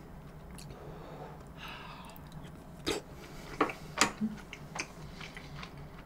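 Quiet eating sounds between bites: a brief soft rustle, then a few sharp little clicks about three and four seconds in.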